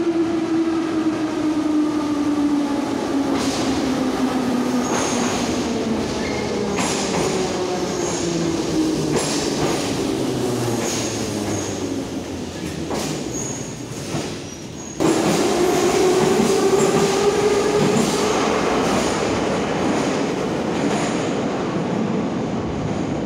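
Metro train pulling into a station: the traction motors' whine falls steadily in pitch as it slows, with regular wheel clacks over rail joints and a faint high wheel squeal. About two thirds of the way through, the sound jumps abruptly to a train pulling out, its motor whine rising as it accelerates away.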